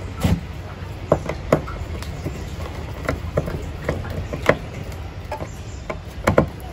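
Scattered light clicks and taps of wires being handled and fitted to a power supply's terminals, irregularly spaced, over a steady low hum.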